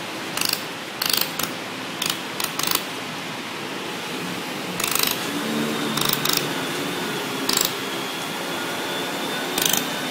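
Welding machine for stainless steel and aluminium firing short welds: about a dozen sharp, hissing bursts, each a fraction of a second long and irregularly spaced, over a steady background hiss.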